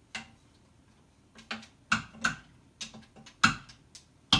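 A stirring spoon clicking and tapping against the Instant Pot's metal inner pot in a series of irregular knocks as beans are pushed down under the broth, the loudest taps near the end.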